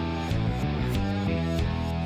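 Rock outro music with guitar over a steady beat.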